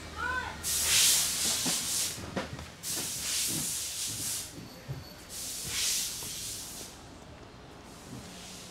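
Three long bursts of hissing, each about a second and a half, followed by a fainter one near the end.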